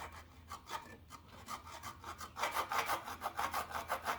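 Hand file rasping on the metal lip of an engine oil pan in quick, repeated short strokes, louder in the second half. The lip is being filed back for clearance where it touches a header pipe.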